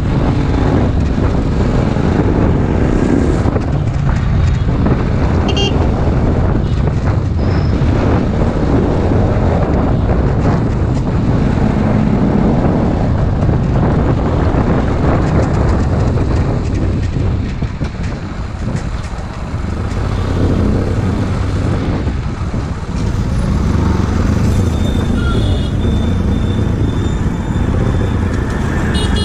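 Bajaj Pulsar NS200's single-cylinder engine running as the motorcycle is ridden along the road, mixed with wind and road noise. The sound eases briefly twice in the second half.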